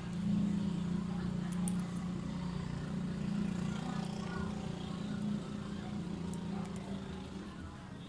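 A steady low engine drone, like a vehicle motor running nearby, fading near the end, with a few faint clicks.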